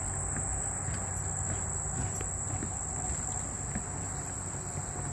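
Insect chorus: a steady, unbroken high-pitched trill, with a few faint taps.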